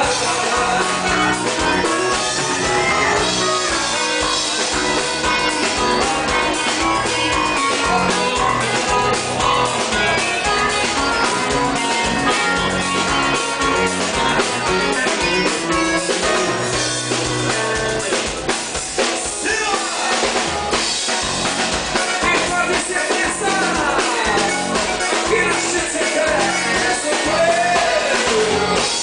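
Live band music with drum kit, guitar and a singing voice, playing at a steady beat.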